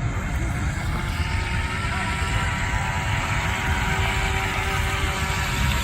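Electric motor of a remote-control racing speedboat whining steadily as it runs across the water, the whine growing stronger about two seconds in, over a heavy low rumble of wind on the microphone.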